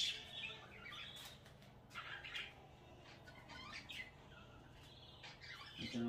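Caged budgerigars chirping faintly, scattered short chirps here and there.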